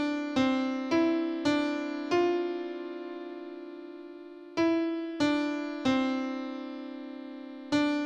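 Background piano music: a slow phrase of single struck notes, one of them left to ring for about two seconds midway.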